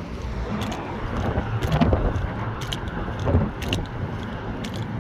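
Steady rumble of interstate traffic crossing the bridge, with wind buffeting the microphone and a couple of louder swells as vehicles pass. Light crunching footsteps on the walkway come about once a second.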